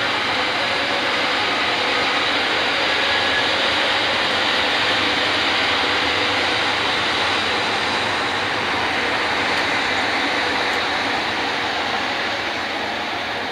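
Train rolling on rails: a steady running noise that swells slightly and eases toward the end.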